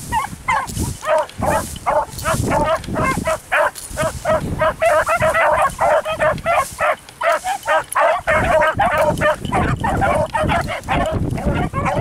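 A pack of beagles baying as they run, a continuous chorus of short, pitched cries coming several a second. Wind rumbles on the microphone underneath.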